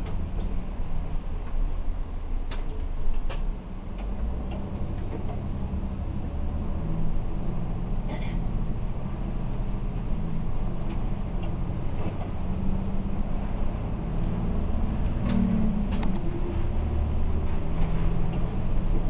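A city bus's engine running as it drives along, heard from inside the cabin, its note rising and falling with the road speed, with a few sharp clicks and rattles from the bus body.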